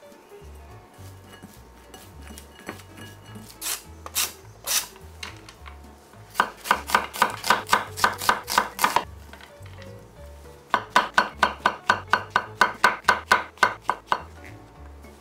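Chef's knife chopping on a wooden end-grain cutting board, slicing an onion and then mushrooms. A few single cuts come first, then two quick runs of even strokes at about five a second. Soft background music plays underneath.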